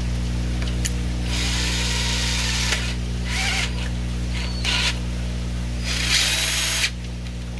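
Ryobi cordless drill with a hole saw fitted, spinning freely in four short trigger bursts, the first and last the longest. A steady low hum runs underneath.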